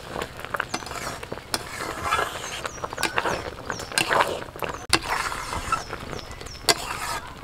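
A spatula stirring a thick, sticky mass of jujubes cooked down in jaggery in a large metal pot: wet churning and squelching, with irregular knocks and scrapes of the spatula against the pot about once a second.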